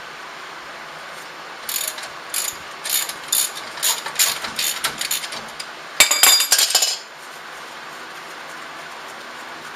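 Ratchet wrench clicking in short strokes as it loosens a brake caliper bolt, followed about six seconds in by a louder, faster run of clicks lasting about a second as the bolt spins out.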